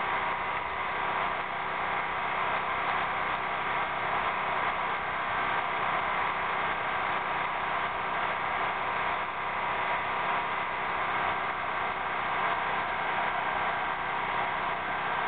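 A steady mechanical hum over a hiss, with several held tones, like a small engine running without change.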